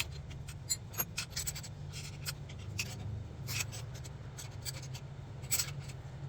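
Irregular small clicks and scrapes of hand tools and metal parts being handled during up-pipe and turbo oil-line work, over a steady low hum.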